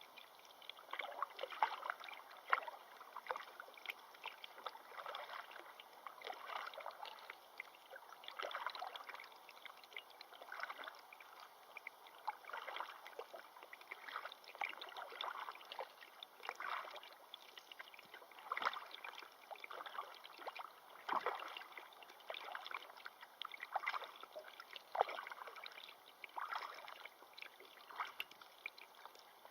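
Moving water splashing and gurgling, a dense run of small irregular splashes without pause.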